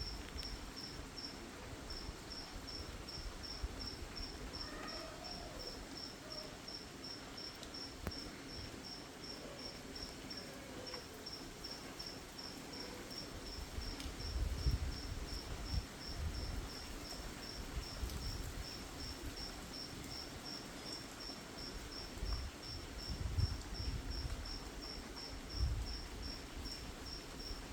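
An insect chirping in a steady, even rhythm, about three short high-pitched chirps a second, over a soft hiss of light rain. Low rumbles come and go midway and again near the end.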